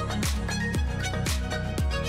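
Background music with a deep kick drum beating about twice a second under a sustained melody.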